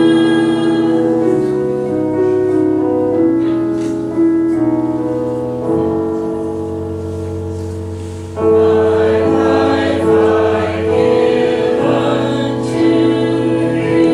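Small mixed church choir singing a slow song in long held notes. The singing grows louder a little past halfway through.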